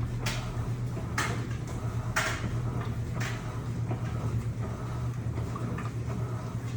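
Electrolux LPE16 washing machine running with a double duvet in the tub: a steady low hum, with a swish of water about once a second through the first few seconds.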